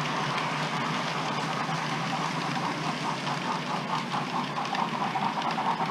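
OO gauge model train running along the track: a steady motor and wheel noise that takes on a quick rhythmic pulsing about halfway through.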